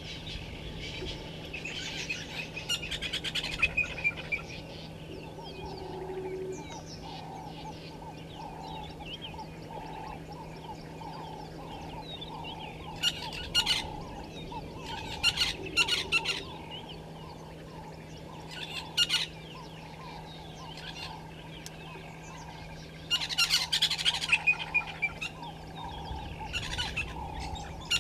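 Wild birds calling in the bush: several loud bursts of harsh, chattering calls, over a lower note that repeats steadily through most of the stretch. A constant low hum lies underneath.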